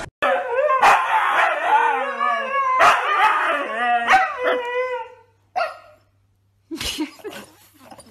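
A husky vocalizing in long, wavering howl-like calls that rise and fall in pitch for about five seconds, then a few short calls with pauses between them.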